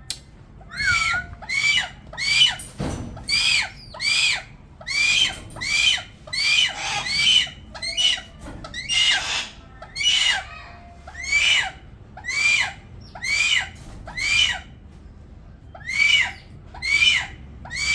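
Goshawk calling: a long string of harsh, screaming calls that rise and fall in pitch, coming roughly one to two a second, with a short pause about three-quarters of the way through.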